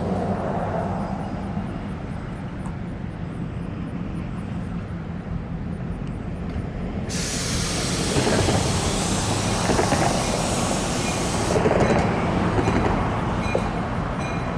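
Train approaching a crossing, a steady low rumble, with a loud hiss that starts suddenly about seven seconds in and cuts off about four and a half seconds later.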